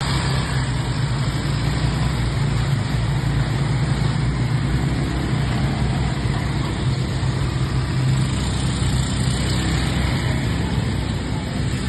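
ATV engine running steadily, a constant low hum with an even rushing noise over it.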